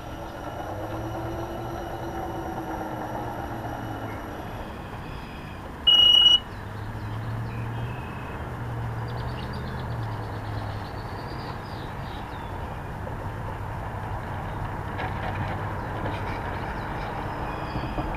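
Radio-controlled Piper J-3 Cub floatplane's motor running steadily as it taxis on the water, with a short high beep about six seconds in.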